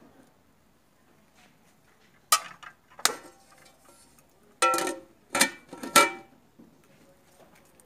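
Stainless steel cooking pot and its metal lid clanking together: five sharp clangs, each with a brief ring, as the lid is handled and set onto the pot.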